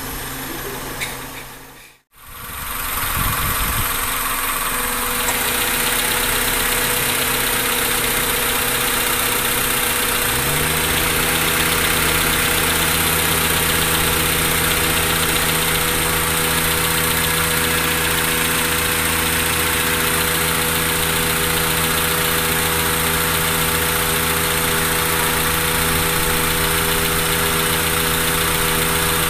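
Honda Civic's four-cylinder engine idling steadily at operating temperature. The sound cuts out briefly about two seconds in. About ten seconds in the electric radiator fan kicks on, a hum that rises quickly and then holds steady over the idle.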